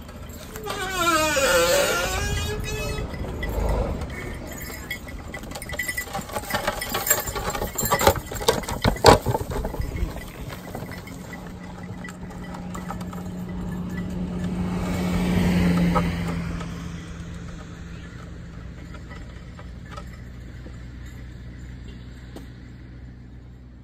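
Motor vehicle engine passing by, a steady drone that swells to a peak about two-thirds of the way through and then fades. Before it come a falling pitched sweep and a run of sharp knocks and clatter, the loudest knock about nine seconds in.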